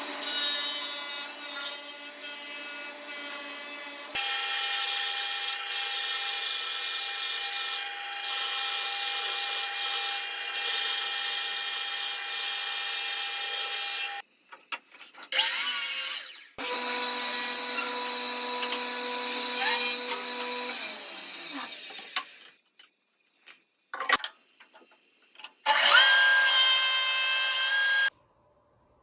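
Electric wood planer running and cutting a piece of firewood flat, a steady motor whine over the cutting noise, in several separate runs that start and stop abruptly. Around twenty seconds in, one run's motor winds down.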